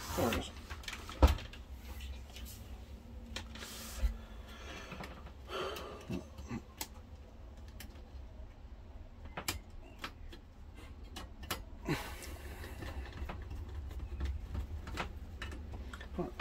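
Scattered clicks, knocks and scrapes from handling a VHS video recorder's opened metal chassis while parts are refitted with a screwdriver, with one sharp knock about a second in.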